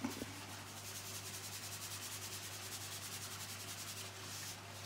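Salt mill being twisted over a pan: a faint, rapid, even grinding rasp that stops about four seconds in.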